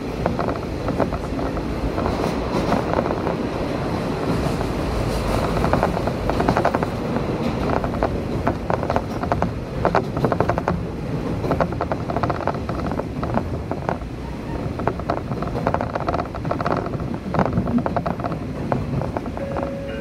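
Diesel railcar running along the line, heard from inside the carriage: a steady rumble of engine and wheels with frequent irregular clacks and rattles from the wheels and bogies over the track.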